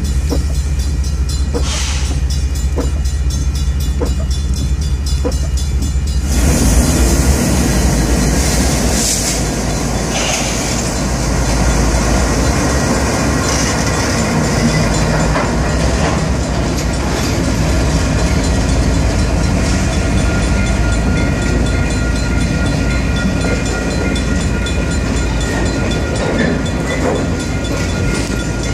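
Freight train passing close by, led by Kansas City Southern diesel locomotives: the engines' rumble and the dense, steady noise of steel wheels on the rails. For the first six seconds it is heard from inside a car at a grade crossing, as a low rumble with a faint tick about once a second, until the sound changes suddenly to the loud trackside pass.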